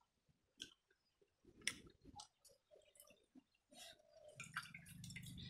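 Faint eating sounds: fingers squishing and mixing wet pakhala rice on a steel plate, with small clicks and chewing. A low steady hum comes in about four seconds in.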